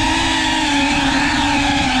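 FPV racing quadcopter's brushless motors and propellers running at speed, a steady high buzz whose pitch holds roughly level with small wobbles.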